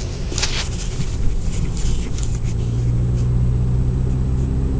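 Saab 9000's engine running while driving, heard from inside the cabin, with a low steady drone that grows stronger about halfway through. A brief rustle sounds near the start.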